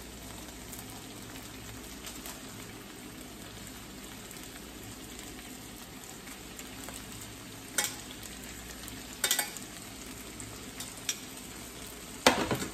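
Vegetables and shrimp sizzling steadily in a frying pan, with a few sharp clacks of metal tongs against a pot, the loudest near the end.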